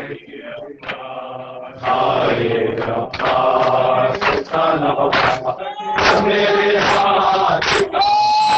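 Men chanting a noha (mourning lament) with a lead reciter, with sharp, rhythmic chest-beating slaps of matam about every two-thirds of a second. The chant is quieter at first and grows fuller about two seconds in, with a long held note near the end.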